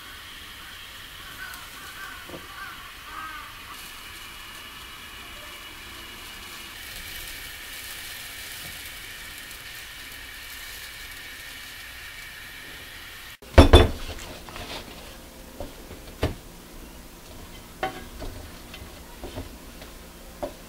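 Gas stove burner hissing steadily as dango skewers are toasted over its flame. Partway through, a loud clunk is followed by several sharper knocks of a metal saucepan and utensils.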